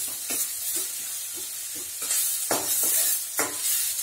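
Chopped onions frying in oil in a stainless steel kadai, sizzling steadily, while being stirred in repeated strokes that scrape against the pan, the loudest a little past the middle.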